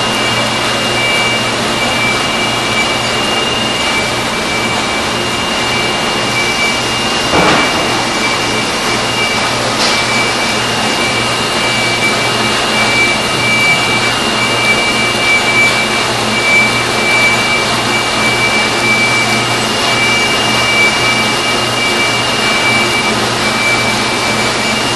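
Mark Andy 830 three-colour flexographic label press running with the paper web moving through it: a steady mechanical whir with two steady high whining tones over a low hum. There is a single short knock about seven seconds in.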